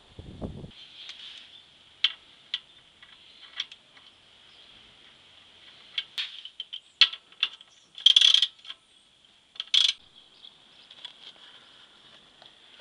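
Sharp metallic clicks and short rattles of the sump plug and tools as the drain plug is refitted under the car, the longest rattle about eight seconds in, over a faint steady high-pitched hiss. A brief low rumble at the very start.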